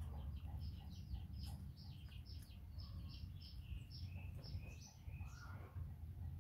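Small birds chirping: a rapid run of short, falling chirps, about four a second, that stops shortly before the end, over a steady low rumble.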